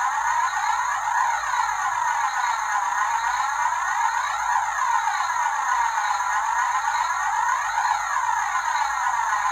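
Steady electronic sweeping sound, a cluster of tones gliding down and back up together about every one and a half seconds, like a phaser effect in a music track.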